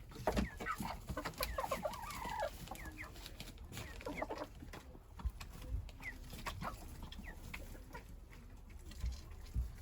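Chickens clucking: a dense run of short calls in the first few seconds, then scattered calls, with a few dull knocks.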